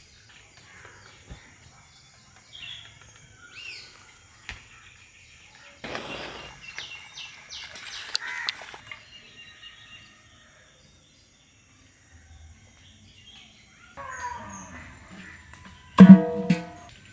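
Outdoor ambience with small birds chirping and whistling on and off. Near the end, a louder harsh animal call comes twice.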